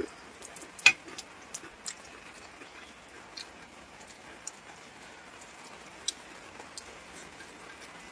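Steady patter of rain with scattered light clicks and taps, one sharper click about a second in.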